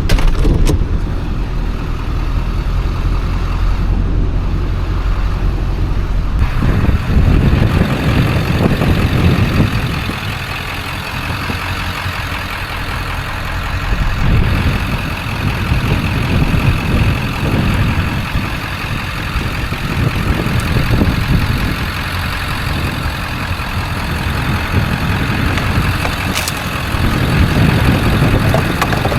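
Motor vehicle driving: steady engine and road rumble that swells and eases as it goes.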